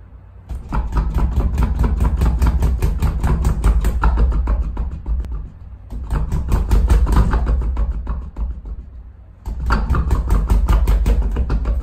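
Maxxmma two-way desktop punching ball being hit with boxing gloves, the ball rebounding on its spring mount in a rapid clattering run of hits, about eight a second. It comes in three bouts, with short breaks a little after five seconds and again around nine seconds in.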